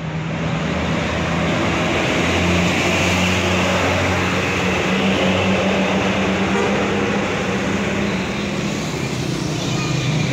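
A motor vehicle running, a steady low engine hum over road noise.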